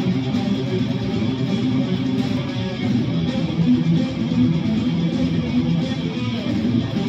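Guitar being played continuously, with no pauses.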